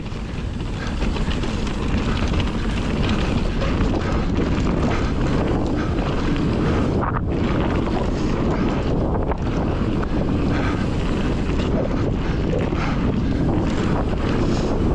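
Wind rushing and buffeting over the microphone of a mountain biker's action camera while riding down a dirt trail, a steady low rush that builds over the first couple of seconds and then holds.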